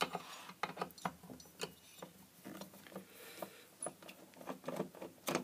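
Faint, irregular clicks and taps of an LED floodlight being handled, fingers knocking and rubbing on its finned aluminium heatsink.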